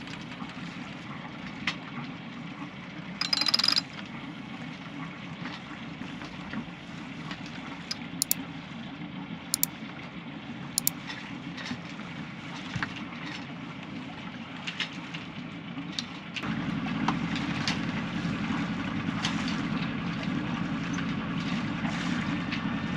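A sailing yacht's inboard engine running steadily, stepping up louder about sixteen seconds in, with a few light clicks and knocks on top.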